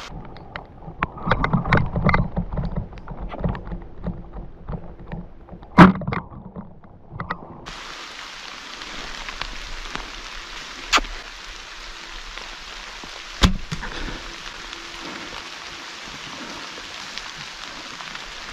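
Rain falling steadily on leaf litter. Over the first few seconds there is rustling and clicking from movement through the wet brush, with a single loud sharp knock about six seconds in, and two fainter sharp knocks come later.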